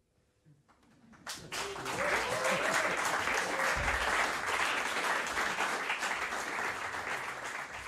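Audience applauding, starting about a second in after a moment of near silence.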